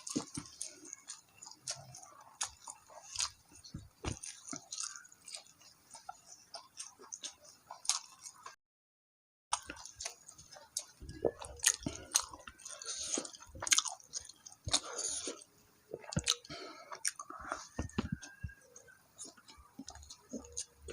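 A person chewing and biting food close to the microphone, with irregular wet clicks and smacks of the mouth. The sound drops out completely for about a second partway through.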